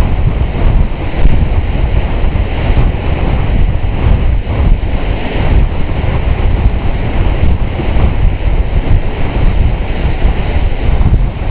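A ferry's wake churning and rushing past the hull: a loud, steady wash of foaming water with a heavy low rumble beneath it.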